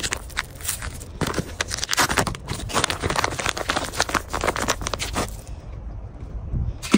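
Plastic bait packet being torn open and crinkled in the hands, a dense crackling that dies down about five seconds in.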